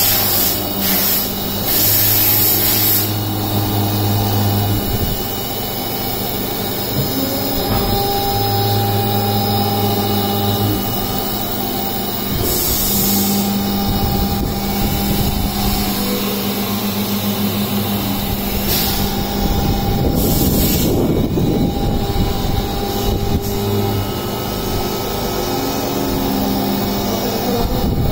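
CNC vertical milling machine cutting grooves in a white plastic sheet: a steady machine hum whose tones shift every few seconds as the cut moves, with a few short bursts of hiss.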